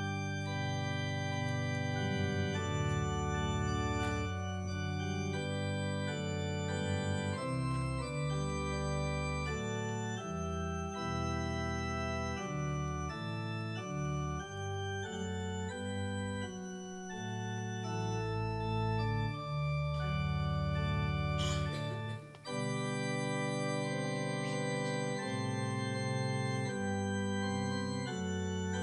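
Church organ playing offertory music: slow, held chords over deep bass notes, with a short break about 22 seconds in.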